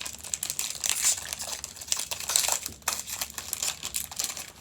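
Foil booster-pack wrapper crinkling and crackling continuously, irregular, as it is handled and torn open.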